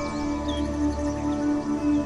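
Calm ambient background music: sustained tones held over a low note that pulses steadily.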